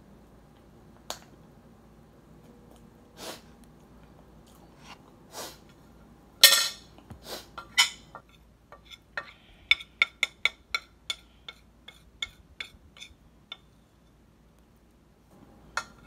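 Dry cornstarch chunks crunching: a few scattered crunches, one loud crunch about six and a half seconds in, then a quick run of sharp crunches, about three or four a second, that stops near the end.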